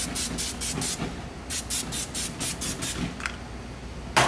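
Aerosol cooking spray hissing in quick pulses, about six a second, in two runs over the hot grates of a gas grill. A single sharp knock comes near the end.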